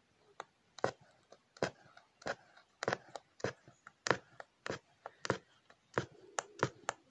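Punch needle stabbing in and out of fabric stretched taut in an embroidery hoop: a steady run of short clicks, about two a second, one for each stitch.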